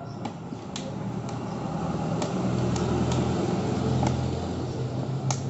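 A steady motor hum that swells over the first couple of seconds and then holds, with scattered sharp clicks on top.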